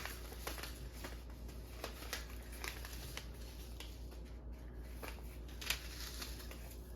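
Paper seed packets being handled and sorted: faint crinkling and scattered soft taps, with one sharper tap late on.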